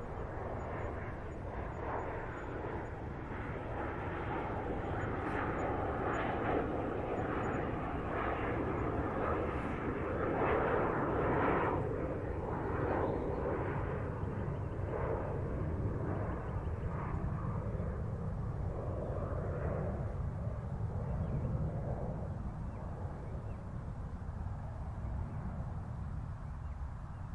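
Jet airplane flying past: a rushing rumble that swells to its loudest about ten to twelve seconds in, then slowly fades while a low rumble lingers.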